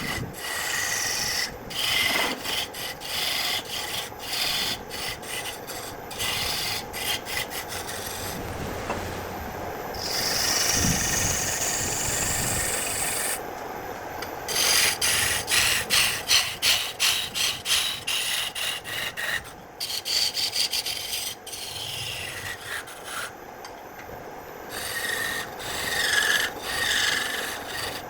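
A hand tool scraping or rasping across wood in many short, repeated strokes, quickest around two-thirds of the way through. Near the middle there is a whine that rises in pitch for a few seconds.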